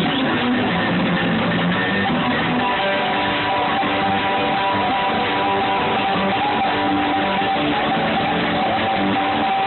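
Live bluegrass band playing an instrumental passage, with strummed guitar and long held notes over it. The sound is dull in the highs, as from a phone's microphone.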